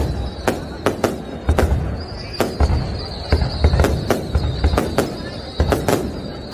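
Fireworks display: aerial shells bursting in irregular sharp cracks, one or two a second, over a deep rumbling of booms, with a thin high whistle running underneath.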